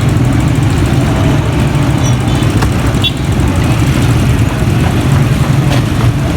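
A small motor or engine running with a steady low hum, with a few faint clicks over it.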